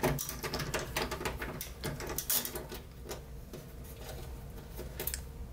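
Cordless drill-driver backing out the screws that hold an LED driver board to a TV's sheet-metal back panel. Short runs of the small motor come with many clicks and rattles of the bit and loosened screws, busiest in the first half.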